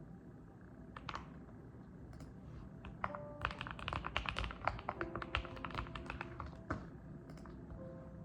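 Mechanical keyboard typing: a couple of single keypresses, then a quick run of keystrokes from about three seconds in until near the end, over soft background music.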